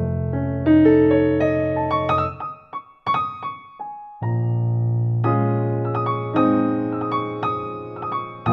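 Background piano music: melody notes over a held bass. It thins to a few scattered notes about two and a half seconds in and comes back in full a little past four seconds.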